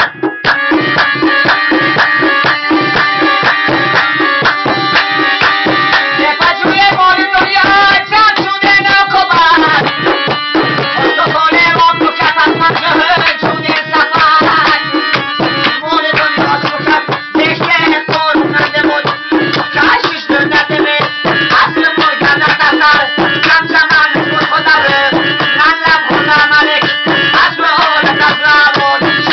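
Live folk music: a harmonium carries the tune over fast, continuous hand-drum strokes.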